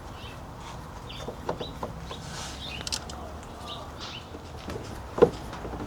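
Chickens clucking in the background, with a few scattered light clicks and knocks from hand tools as the wheel hub is being unbolted. The sharpest knock comes about five seconds in.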